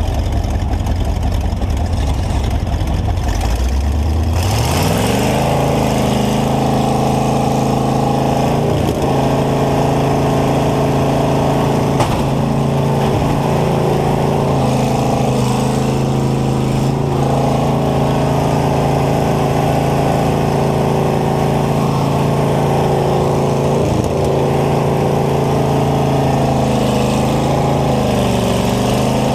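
Combine engine heard from inside the cab, running at a low rumble and then revving up about four seconds in and holding high revs, its pitch sagging briefly now and then under load. A few sharp knocks come through as the combine hits other combines.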